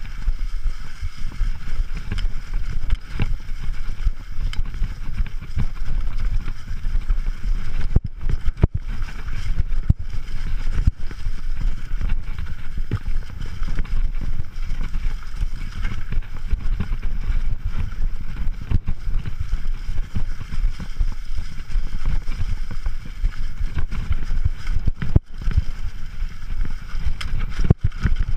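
Mountain bike riding fast down a leaf-covered dirt singletrack: a steady rumble of tyres and frame vibration, broken by frequent sharp knocks and rattles as the bike goes over the rough trail.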